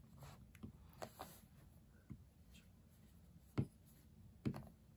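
A stylus tapping on an iPad's glass touchscreen: a handful of light, separate taps over quiet room hiss, the two sharpest near the end.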